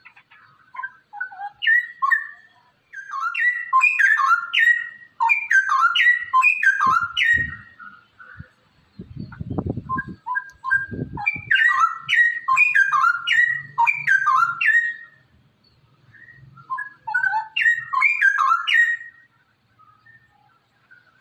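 Straw-headed bulbul (cucak rowo) singing: three bursts of quick, loud whistled notes that each drop in pitch. A short low rumble falls between the first two bursts, about halfway through.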